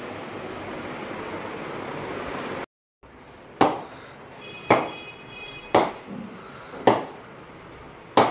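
A steady background hiss, which cuts out briefly. Then a ball is tapped up repeatedly off the face of a new SG Sunny Gold Classic cricket bat: five sharp wooden knocks, about one a second. This is a ping test of the bat's rebound off the willow.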